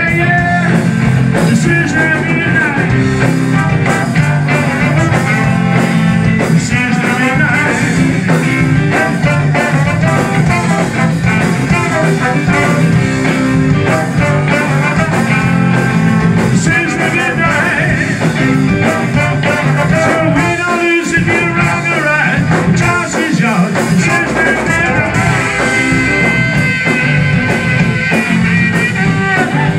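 Ska band playing live: electric guitar and drums under a horn section of saxophone, trombone and trumpet carrying the melody. The low end drops out briefly about two-thirds of the way through before the band comes back in.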